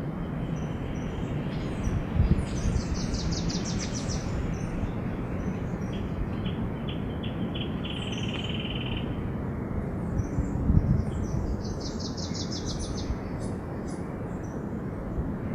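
Small birds singing outdoors: two rapid high trills, the second about ten seconds after the first, and a lower buzzy trill between them, over a steady background hiss. Two low thumps, about eight seconds apart.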